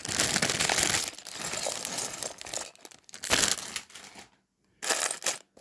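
Plastic LEGO parts bag crinkling as it is handled and opened, in several rustling bursts, loudest in the first second.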